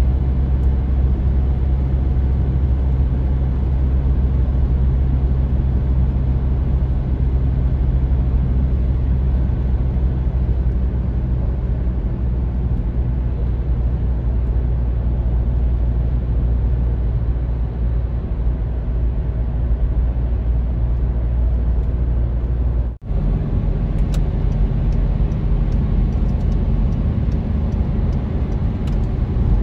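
Steady road and engine drone inside a car cruising on an open highway, with a very short dropout about three-quarters of the way through.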